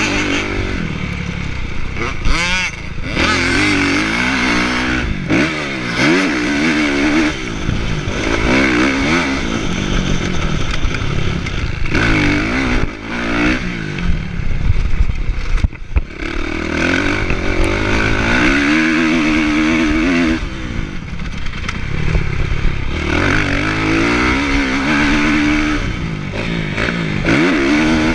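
Kawasaki motocross bike's engine, heard from the rider's chest, revving up and down again and again as it accelerates, shifts and rolls off around the track.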